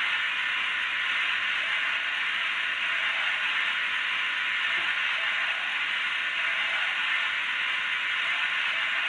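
Steady hiss of standing-still running sounds from the sound decoder of an H0-scale Renfe series 269 electric locomotive model, played through the model's small speaker.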